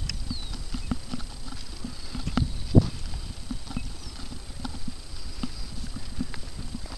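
Wind buffeting the camera microphone, a low rumble with irregular thumps and knocks.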